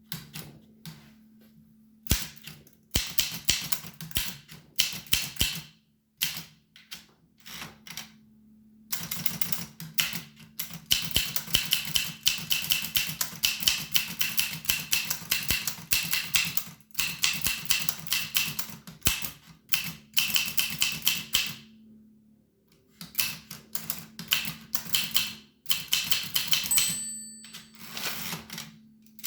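1895 Williams No. 1 typewriter being typed on: keystrokes clacking in quick runs, with short pauses between the runs.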